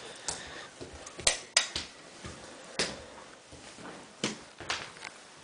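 A baby's hands slapping a hardwood floor as it crawls: about six sharp, irregular slaps and knocks.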